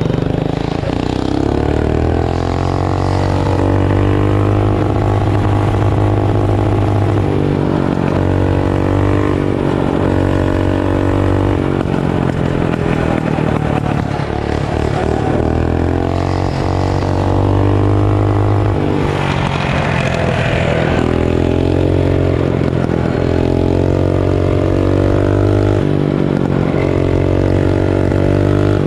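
Performance mini bike's small gas engine running loud under throttle while ridden, its note rising and falling several times as the throttle is opened and eased off.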